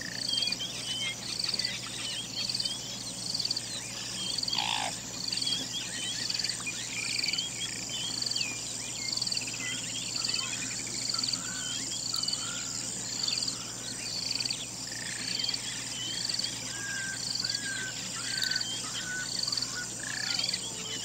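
Birds chirping and calling over a steady high insect buzz, with one short high note repeating a little more than once a second and a single quick falling call about four and a half seconds in.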